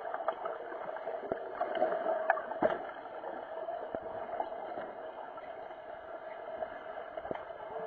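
Underwater pool sound heard through an action camera's waterproof housing: a steady muffled hum with scattered sharp clicks and knocks from underwater hockey play, most of them in the first three seconds.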